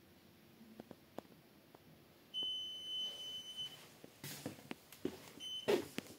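Electronic beeper of a heat-recovery ventilation unit sounding during Wi-Fi pairing: one long high beep of about a second and a half, then two short beeps near the end. Scattered clicks and a couple of brief rustles of handling around it.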